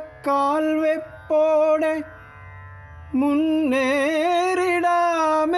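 Background music: a Malayalam song, a voice singing wavering held notes over a steady low accompaniment. Two short phrases are followed by a brief pause, then one long held phrase from about three seconds in.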